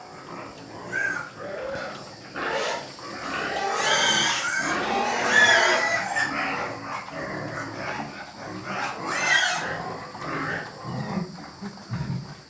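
Several pigs squealing over one another, loudest about four to six seconds in and again just after nine seconds, with lower grunts near the end.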